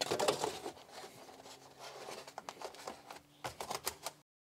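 Styrofoam battery cover being pushed down into place, foam rubbing and scraping against the parts beneath it with a run of small clicks and knocks. The sound cuts off abruptly near the end.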